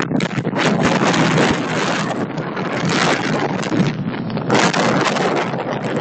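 Loud wind noise buffeting the microphone, a rushing haze that swells and drops in gusts.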